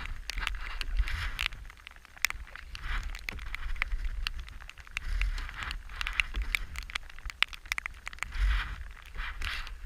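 Canoe paddling: irregular clicks and knocks, likely the paddle against the hull, with swelling swishes of water every second or two and a low wind rumble on the microphone.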